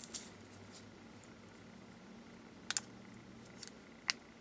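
A handful of faint, sharp plastic clicks and crinkles: a small plastic cup of jelly gouache paint being handled as its film lid is peeled open.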